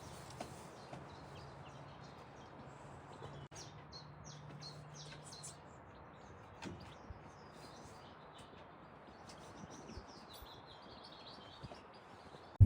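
Birds chirping and calling over faint outdoor ambience, with a low steady hum that stops about five seconds in.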